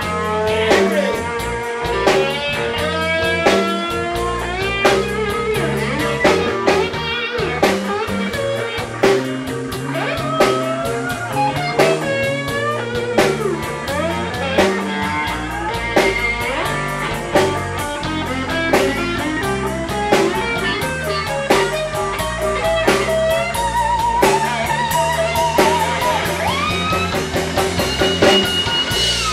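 Live blues band playing: a guitar leads with bent, sliding notes over a walking bass line and a steady drum-kit beat.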